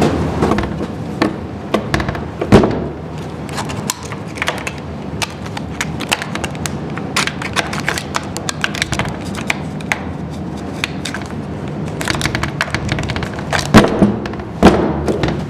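A metal lever door handle and its latch being worked, with many small clicks and rattles and a few heavier thumps, one about two and a half seconds in and two near the end.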